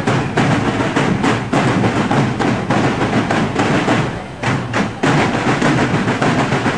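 A school marching band's drum section playing a steady marching beat on snare and bass drums. The beat drops away for about a second around four seconds in, then picks up again.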